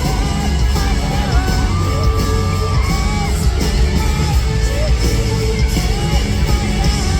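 Live band music played loud through a concert PA, with held, gliding melody notes over a heavy, steady low end.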